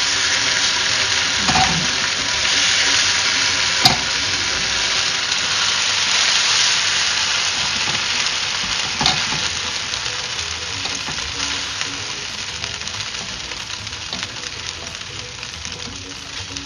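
Floured steak chunks sizzling as they brown in hot oil in a nonstick frying pan, stirred and then scraped out with a spatula. Two sharp knocks of the spatula on the pan, one about four seconds in and one about nine seconds in; the sizzle dies down over the second half.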